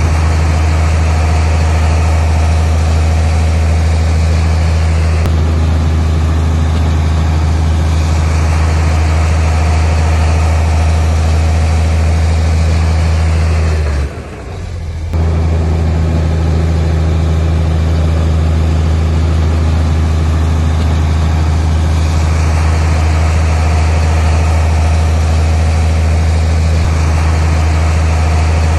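Loud, steady running of a heavy earthmoving machine's diesel engine, holding a low, even pitch. The sound drops out briefly for about a second roughly halfway through, then resumes at the same pitch.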